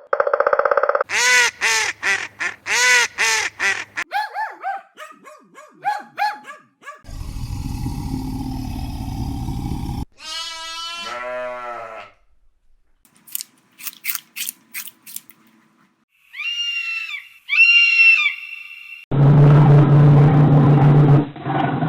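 A string of short clips of different animal calls, each cut off abruptly and followed by the next. They run from a series of repeated rising-and-falling calls near the start, through a low rumbling and a fast pulsing call, to a loud low growl near the end.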